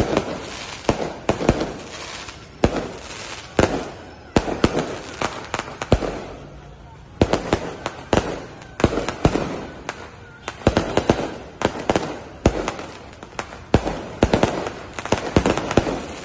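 Aerial fireworks launched and bursting close overhead: a continuous, irregular series of sharp bangs, at times several in quick succession, with crackling between them.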